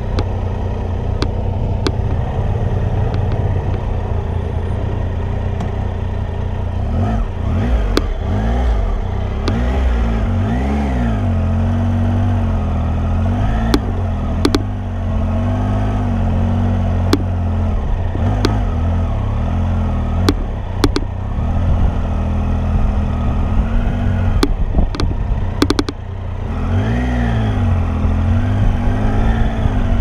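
Triumph motorcycle engine ridden slowly in a low gear, its pitch rising and falling again and again as the throttle is opened and closed, with scattered sharp clicks.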